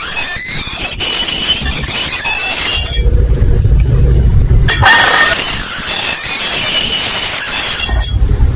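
Very loud, harsh prank 'alarm' sound: a steady high tone and gliding squeals over heavy noise. It cuts abruptly to a low rumble about three seconds in, comes back about five seconds in, and switches to the rumble again near the end.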